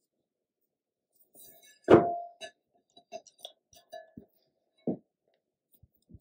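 Handling noises from crocheting with a metal crochet hook in cotton yarn: one loud thunk with a short ring about two seconds in, then a scatter of light clicks and taps.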